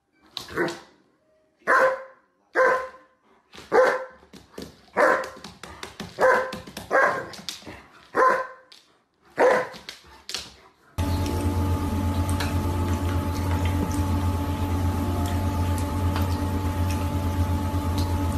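A German Shepherd barking about ten times, roughly once a second. About eleven seconds in the barking gives way to a steady hum with a low drone.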